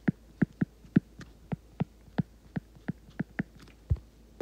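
A stylus tip tapping and clicking on a tablet's glass screen during handwriting: an irregular run of sharp clicks, about three to four a second, with a duller knock near the end.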